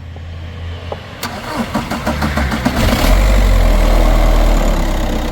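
Diesel car engine being cranked by its starter motor, powered from a NOCO 1000A portable jump starter: quick, even cranking for about a second and a half, then the engine catches about three seconds in and runs with a loud, steady rumble.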